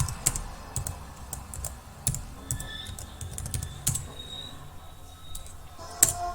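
Typing on a computer keyboard: irregular key clicks, with one louder keystroke near the end.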